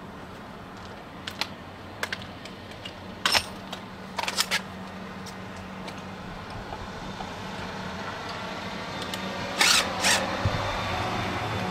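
Cordless drill/driver tightening the screw of the hose-strap clamp on a metal hose reel: scattered clicks and taps of handling, then two short bursts from the driver near the end, over a steady low hum.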